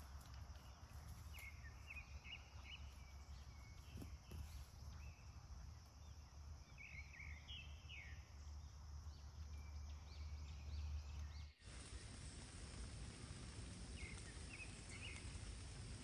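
Quiet woodland ambience with a low wind rumble and several clusters of short, high bird chirps, a few notes at a time. The background changes abruptly about twelve seconds in.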